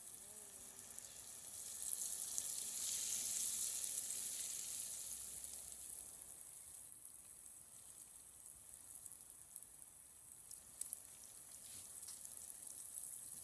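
Food frying in hot oil: a steady high sizzle with small crackles, louder a couple of seconds in.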